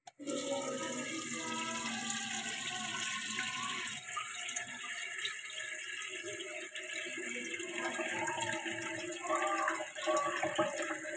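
Tap water running into a non-stick wok in a stainless steel sink. It starts as a thin stream and opens into a full spray about four seconds in.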